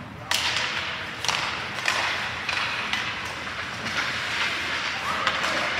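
Ice hockey play on a rink: a sharp crack about a third of a second in, then repeated scraping hisses of skate blades carving the ice, coming every half second or so.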